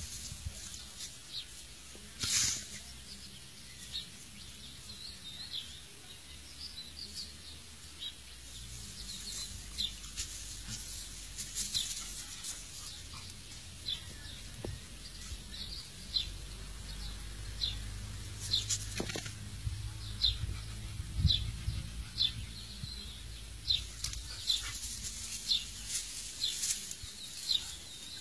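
Small birds chirping: short, high chirps repeated over and over, thickest in the second half. About two seconds in there is a brief sharp knock, the loudest sound.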